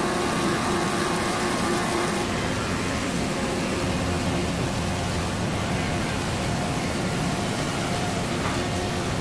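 Wood moulder running steadily, its cutter heads and feed rollers shaping a profile along an iroko board: an even machine drone with a faint steady whine.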